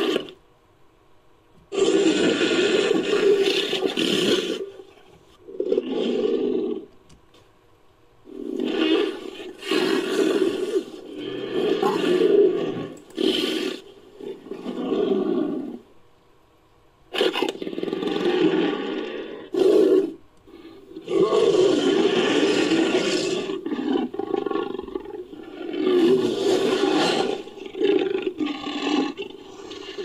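Made-up creature sound effects built by mixing Megalosaurus dinosaur sounds with Homotherium (scimitar-toothed cat) sounds: a series of about ten roars, each one to three seconds long, with short quiet pauses between them.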